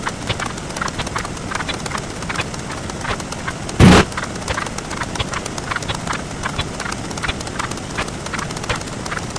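Sped-up counting sound effects: a fast, even stream of short clicks, several a second. About four seconds in, one much louder, brief burst of noise stands out.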